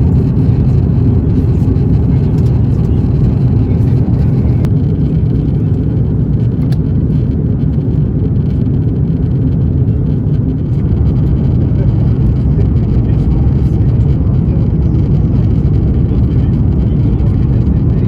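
Steady cabin noise inside an Airbus A350-900 airliner in flight: an even, low rush of airflow and engine noise.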